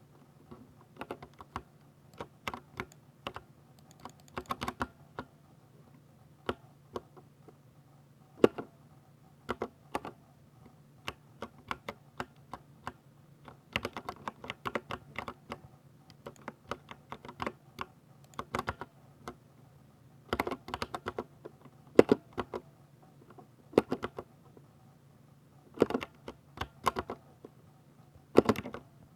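Typing on a 60% mechanical keyboard with Ducky silver (linear, short-travel) switches: irregular runs of quick keystrokes, with a few louder single key strikes scattered through.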